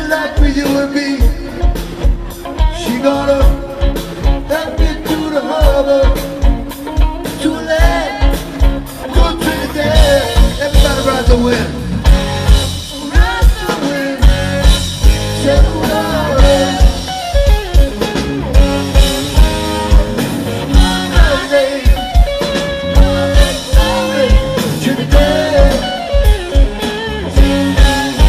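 Live rock band playing through a concert PA: a steady drum-kit beat, electric guitars and bass under a woman's lead vocal.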